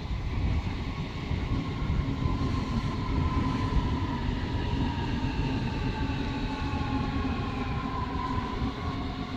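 A red S-Bahn electric multiple unit running along the far platform track. Its traction motors whine in several tones that fall slowly in pitch as it slows, over a steady low rumble of wheels on rails.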